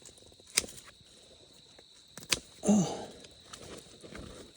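Two sharp snaps in dry swamp brush, about a second and a half apart, with faint rustling in between as someone pushes through it.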